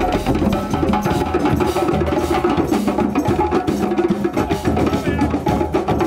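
A drum circle of many djembe hand drums played together, with a drum kit among them, beating out a fast, dense rhythm.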